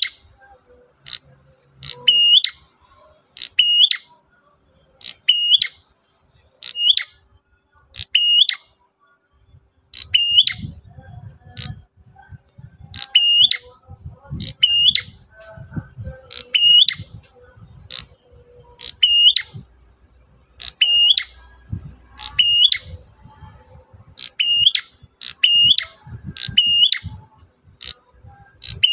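Prenjak merah calling over and over, a sharp high chirp about once a second, each call a quick high note followed by a short rising one. A low rumble sits underneath from about a third of the way in.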